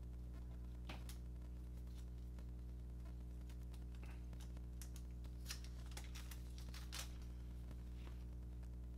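Faint, scattered clicks and light taps of fingers handling a Google Pixel Buds Pro 2 plastic charging case, over a steady low electrical hum.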